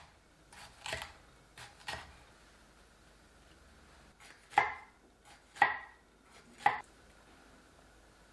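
Knife cutting food on a cutting board in slow, separate strokes. A few soft cuts come first, then three loud strikes about a second apart.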